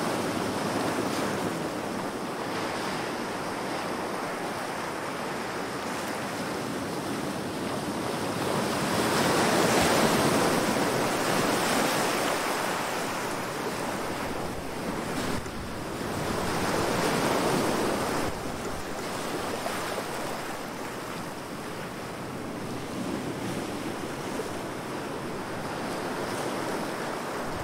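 Sound effect of heavy waves crashing on rocks: a continuous surging wash that swells loudest about ten seconds in and again around seventeen seconds.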